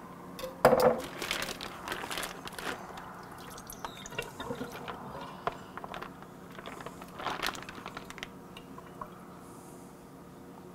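Plastic vacuum-seal bag crinkling and rustling as thawed snapping turtle meat is worked out of it over a sink, with irregular small clicks and juice dripping from the meat.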